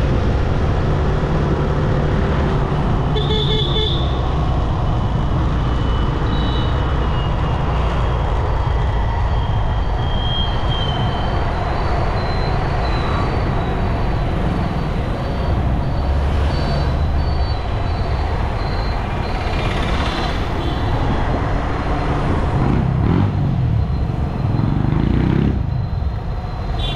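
Motorcycle riding through traffic: steady low rumble of wind, road and engine noise. A vehicle horn toots briefly about three seconds in, and an engine rises in pitch near the end.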